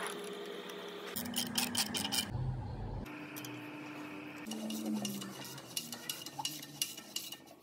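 Steel spanners and a ratchet clinking and clicking against a Renault 21 engine's timing-belt tensioner and crankshaft pulley bolt during a timing-belt change. Rapid runs of clicks come about a second in and again from the middle on, over a steady hum.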